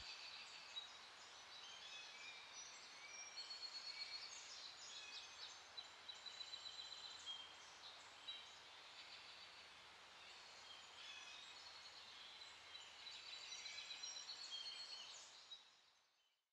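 Faint birdsong: many short chirps and whistles from several birds over a soft hiss, fading out near the end.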